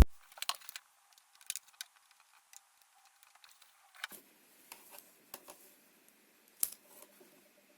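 Small clicks and knocks of a washing-machine control board and its mains lead being handled and plugged in, the sharpest knock about two-thirds of the way through. Near the end a faint steady pulsing tone starts up, a sound coming from the powered board even though its display shows no sign of life.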